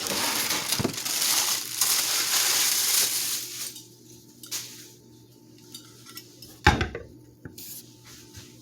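Hands rustling and scraping through the packaging of a boxed ceiling fan for about three seconds, then quieter handling with one sharp knock about two-thirds of the way through.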